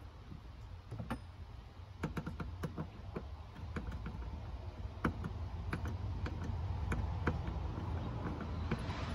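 Irregular small metallic clicks and taps of a screwdriver and ring-lug cable terminals being worked on battery terminal posts, over a steady low rumble that grows louder near the end.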